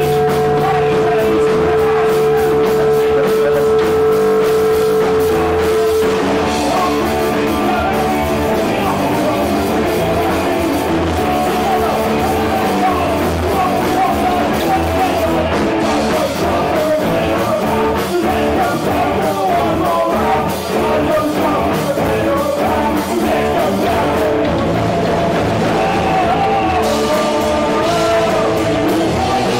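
Rock band playing live with electric guitar, bass and drums. A single note is held for the first six seconds, then busier melodic lines take over.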